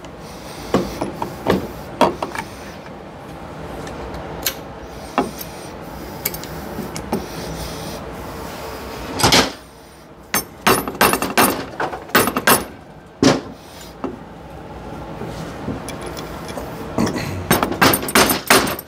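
Metal clinks and knocks as a cast-iron valve body is handled and set down onto a Powerglide transmission case, over a steady background hum. Near the end, a quick run of taps from a rubber mallet seats the valve body.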